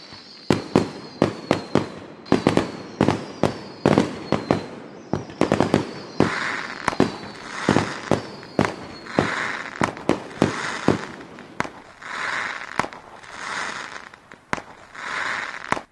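Fireworks going off: a rapid string of sharp bangs and cracks. Whistles fall in pitch over the first half, and swells of hissing crackle come about every second and a half in the second half. The sound cuts off abruptly at the end.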